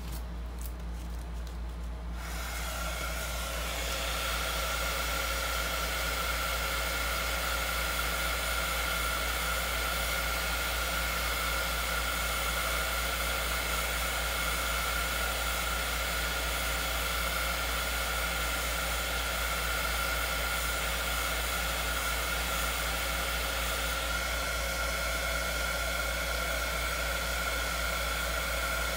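Heat gun switched on about two seconds in, then running steadily with a fan whine over a hiss.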